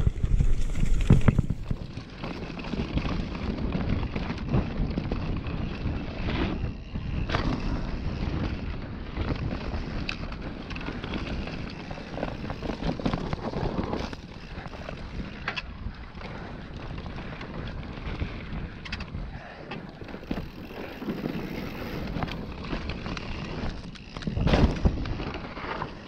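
Mountain bike riding fast down a dirt forest trail: wind rushing over the camera microphone and tyres rumbling on the ground, with frequent sharp knocks and rattles from bumps. The wind noise is loudest in the first second or two, and a heavy jolt comes near the end.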